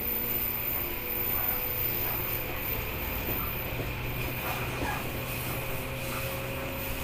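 Running sound inside a JR 115 series 300-subseries electric multiple unit motor car, MoHa 115-362: a steady low hum of the MT54 traction motors and gearing under the floor, over wheel-and-rail noise, as the train travels between stations.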